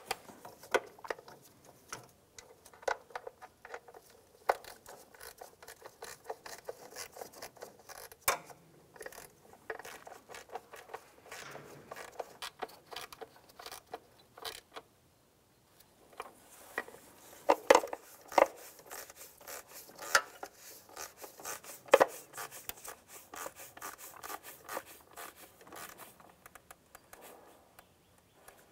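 Hand ratchet clicking in quick runs as bolts on a plastic upper timing cover are snugged down, with a few sharper knocks of the tool against metal.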